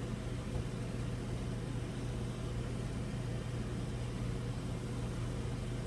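Steady low mechanical hum with an even background hiss, unchanging throughout, like a motor or appliance running continuously.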